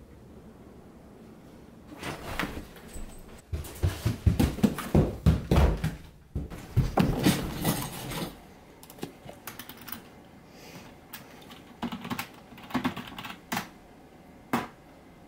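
Fast, heavy typing on a computer keyboard, a dense run of keystrokes mixed with heavier thumps that starts about two seconds in. It thins to scattered keystrokes in the second half, with one last tap near the end.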